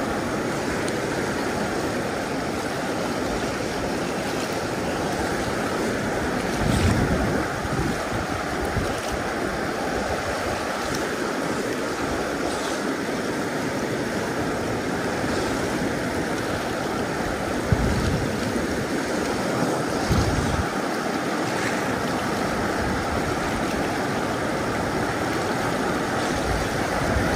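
Steady rushing of river water around a floating boat. A few short low thumps break in, one about a quarter of the way in and two more about two-thirds of the way through.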